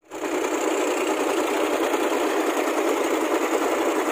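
A small boat's outboard motor running steadily under way, an even, buzzing engine drone that cuts in right at the start.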